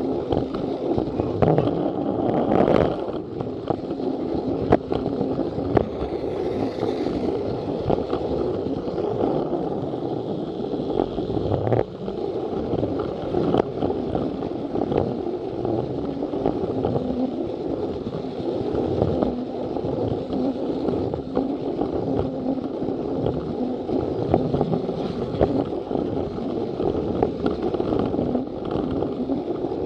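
Battery-powered Plarail toy train running along plastic track: a steady small-motor hum with wheels rattling on the rails, and scattered sharp clicks.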